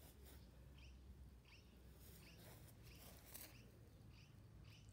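Near silence outdoors, with a small bird chirping faintly: one short, high chirp every half second to second.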